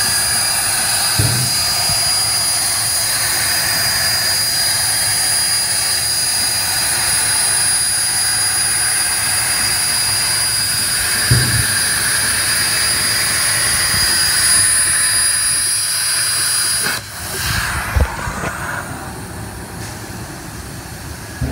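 CNC plasma cutter torch cutting through steel plate: a steady loud hiss with a thin high whine. About seventeen seconds in, the arc cuts off suddenly, leaving a quieter hiss and a single knock.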